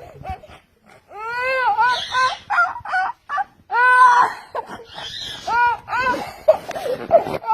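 A young child crying and wailing: a string of high cries that rise and fall in pitch, broken by sobbing breaths, starting about a second in.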